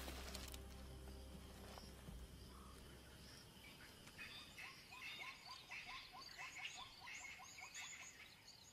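Faint chorus of wild animal calls in the bush: a quick run of short rising chirps, about three a second, with higher twittering over it. A low held music note fades out during the first few seconds.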